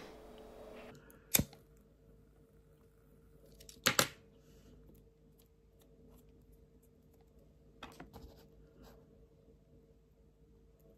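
Two sharp clicks about two and a half seconds apart, then a few faint small handling noises. The sound comes from a small spring-loaded plastic cord-lock toggle being worked and paracord drawstring being threaded through it.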